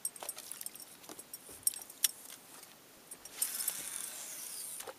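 Light metallic clicks and rattles as a fishing rod, baitcasting reel and bucktail spinner are handled. About three seconds in comes a high hiss lasting about a second and a half as line runs off the reel, with a faint tone falling in pitch as the spool slows.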